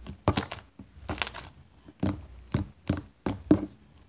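Homemade slime with water worked into it squelching and popping as hands knead, squeeze and pull it apart: an irregular run of wet, sticky smacks, about three a second.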